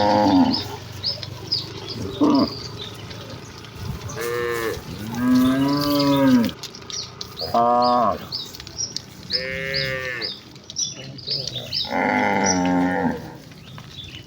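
A herd of village cattle mooing, about seven separate calls from different cows, some short and some drawn out for over a second. A steady run of high, quick chirps sounds behind them.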